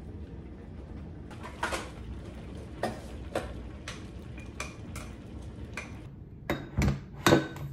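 Kitchen clatter: dishes and utensils clinking and knocking, a dozen or so short sharp clinks, some ringing briefly, the loudest near the end. A low steady hum runs underneath.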